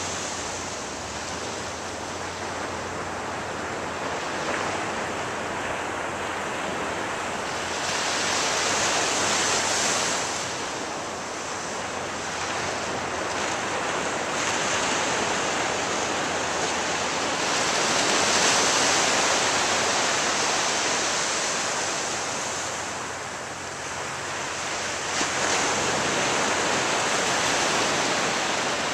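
Ocean surf on a beach: a steady wash of waves that swells louder three times as sets break, the last surge coming in suddenly near the end.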